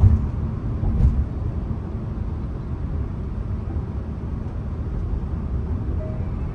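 Renault Samsung SM3 being driven: a steady low rumble of road and engine noise, with a soft knock about a second in.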